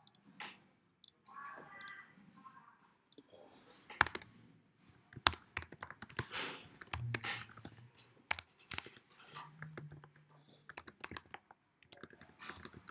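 Typing on a computer keyboard: irregular key clicks in short runs with pauses between.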